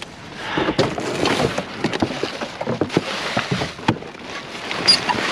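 Scrap and debris being handled and shifted in a dumpster: rustling and scraping with many irregular knocks and clatters.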